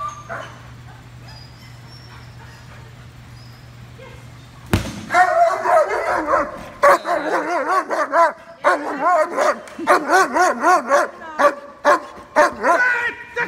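Young German Shepherd whining and yipping in rapid rising-and-falling cries, several a second, from about five seconds in, excited during play, with sharp clicks among them. Before that there is only a steady low hum.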